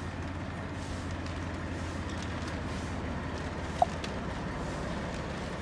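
A steady low engine drone, with one short sharp click and squeak almost four seconds in.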